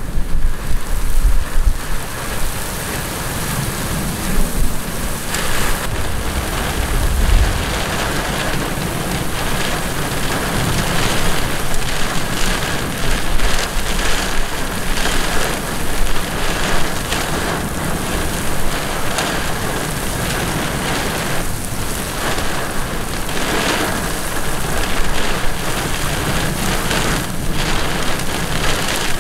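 Heavy thunderstorm downpour hammering on the road and grass, swelling and easing as strong wind gusts drive it. A low rumble underlies the first several seconds.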